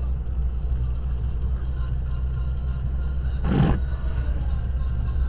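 Steady low rumble of a car's engine and tyre noise heard inside the cabin, with a brief rush of noise about three and a half seconds in as an oncoming articulated truck passes close by.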